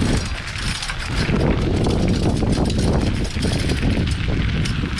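Wind buffeting the microphone during a bicycle ride: a dense, uneven low rumble.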